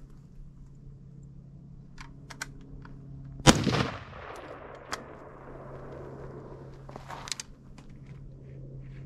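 A single AR-15 rifle shot: one sharp report about three and a half seconds in, with an echo rolling off for about a second. A few faint clicks come before and after it.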